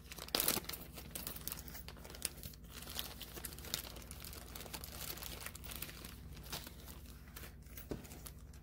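Packing paper and small plastic zip-top bags of jewelry findings crinkling and rustling as they are unwrapped and set down, in soft irregular crackles with a louder rustle just after the start.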